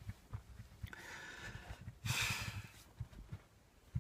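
A man breathing heavily, with two long breaths starting about one and two seconds in, over faint low bumps. It is the laboured breathing of someone overheating and stressed in a sealed hot car.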